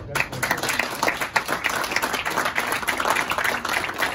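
A room of people applauding, many hands clapping densely together after a speech.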